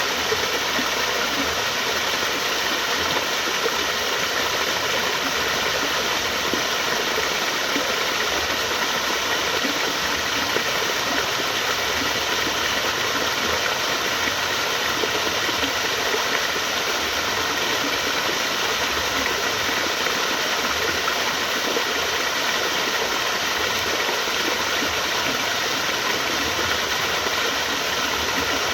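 Running water flowing steadily: an even, unbroken rushing noise.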